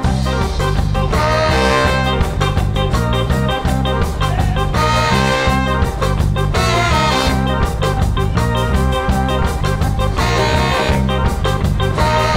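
Live band playing a reggae–tsifteteli fusion tune: drum kit, guitars and keyboard keep a steady beat under a trumpet and saxophone horn section playing phrases. The full band comes in together right at the start.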